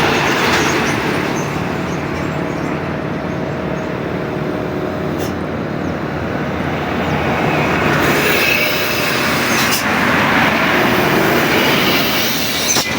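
Heavy road traffic, large vehicles such as buses going past in a steady rushing rumble that swells about two-thirds of the way in.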